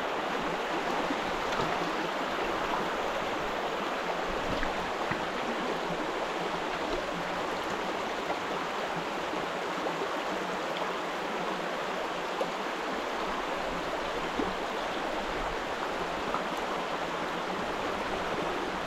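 A mountain stream running over rocks, a steady rush of flowing water with a few faint ticks.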